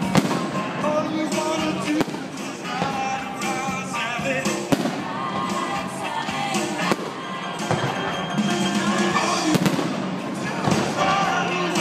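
Aerial firework shells bursting, with several sharp bangs a couple of seconds apart. Behind them runs music with vocals.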